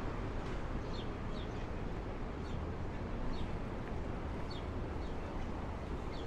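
Steady hum of city street traffic, with a small bird chirping short, falling notes every second or so.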